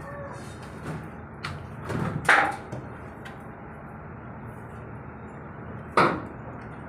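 Sharp knocks and clatter of hands working inside the opened sheet-metal chassis of a portable welding machine, pulling at the module's wiring: a few knocks about a second and a half to two and a half seconds in, and one loud knock near the end.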